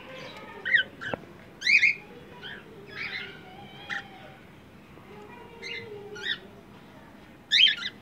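Cockatiels chirping: short, sharp calls about once a second, with a louder burst of several calls near the end.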